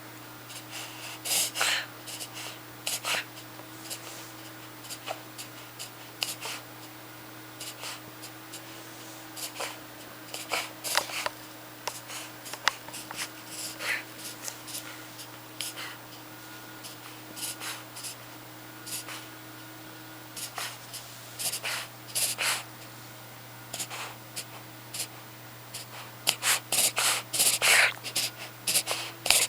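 A small puppy's short, noisy breaths in scattered bursts, with a quick run of them near the end. It is a paroxysmal breathing episode that the owner takes for reverse sneezing, or else a cough that has lasted over a month.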